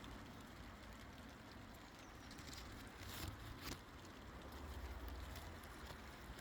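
Faint outdoor background with a low wind rumble on the microphone, and two soft clicks a little past halfway.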